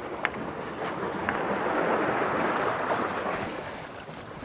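Small waves washing against the rock armour of a sea wall: a hiss of water that swells and then fades away.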